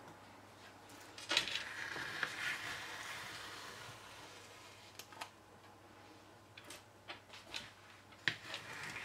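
Metal ice cream scoop scraping through firm frozen ice cream in a dish, a longer scrape about a second in, then a scattering of short clicks and taps near the end.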